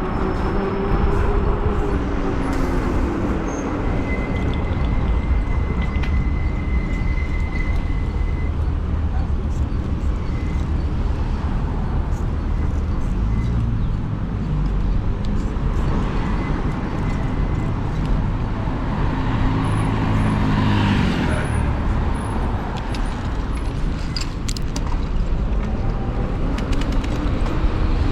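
Steady wind and road noise on the microphone while riding an e-bike along a road, with motor vehicles passing. One vehicle's engine drops in pitch as it goes by near the start, and another passes about two-thirds of the way through.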